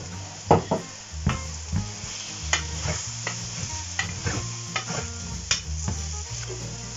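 Sliced king bolete mushrooms frying and sizzling in a pan, stirred with a wooden spoon that scrapes and knocks against the pan many times.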